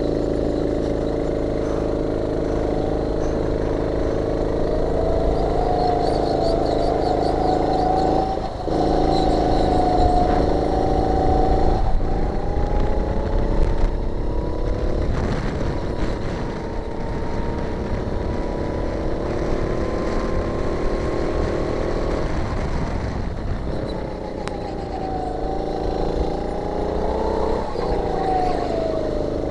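Go-kart engine heard from on board, run hard through a lap. Its pitch dips sharply about eight seconds in, climbs slowly for about ten seconds along a straight, then drops for a corner and picks up again near the end.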